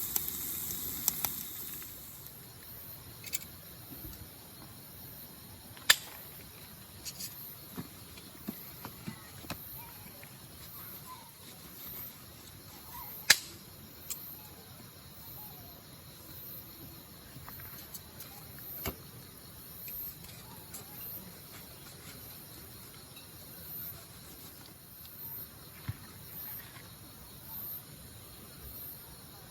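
Insects, likely crickets, chirping in a steady high-pitched pulse about once a second, with a few sharp clicks, the loudest about six and thirteen seconds in. A hiss fades out over the first two seconds.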